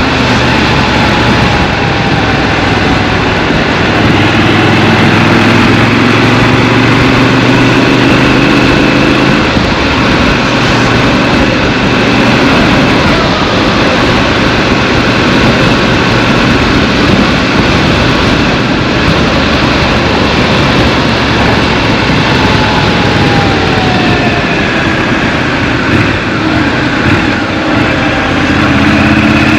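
Scrambler motorcycle's engine running on the move, heard from the rider's seat over steady wind and road rush. The engine note grows stronger about four seconds in and eases off again around ten seconds in.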